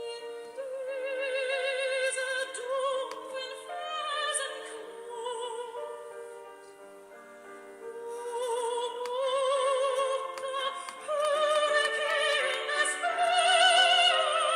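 Slow classical music with a high, operatic melody held in long notes with wide vibrato over sustained accompaniment. It grows softer about halfway through and swells to its loudest near the end.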